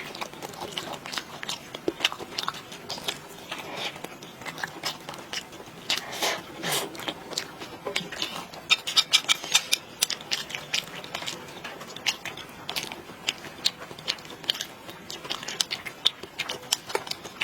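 Close-up chewing and biting: a person eating pig's tail, with a steady run of irregular sharp mouth clicks that come thickest about nine seconds in.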